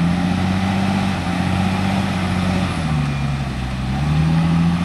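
Heavy diesel engine of a wheeled tractor hauling a loaded Bell pull scraper, running hard under load. Its pitch dips for a moment about three seconds in, then climbs back.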